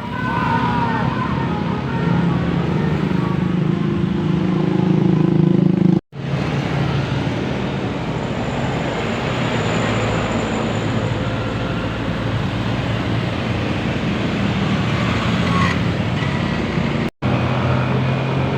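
Large buses passing on a road: a low diesel engine drone, then a steady rush of engine and tyre noise, with the sound cutting off sharply twice.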